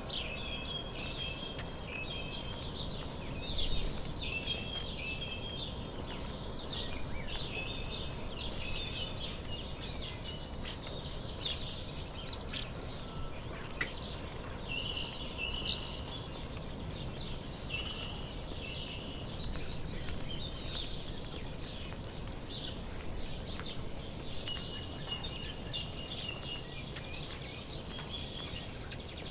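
Several birds singing, a continuous run of short chirps and trills with a flurry of quick sweeping notes about halfway through, over a steady low background rumble.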